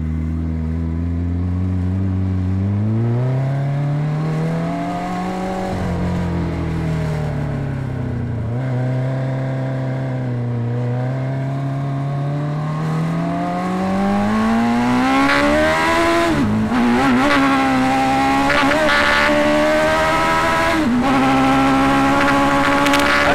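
Hayabusa-engined Sierra Cars off-road buggy accelerating flat out through the gears, on a run that reaches about 80 mph. The engine note climbs steadily and drops sharply at each upshift: about six seconds in, then again near seventeen and twenty-one seconds.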